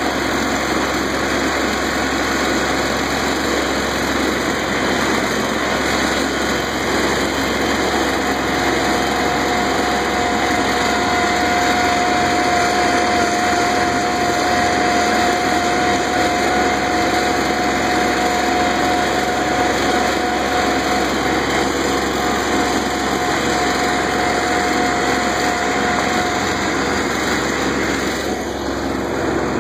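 Kubota B2100 compact tractor's three-cylinder diesel engine running steadily under load, driving a front-mounted Kubota B2660 snowblower as it throws snow. A steady whine comes in about a third of the way through and fades out near the end.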